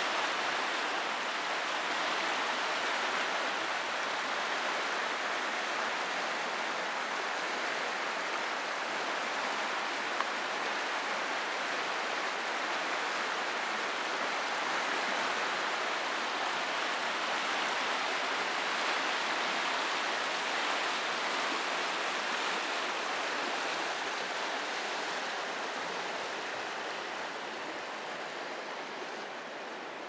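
Köprüçay River rushing through white-water rapids: a steady rush of fast-flowing water that eases a little near the end.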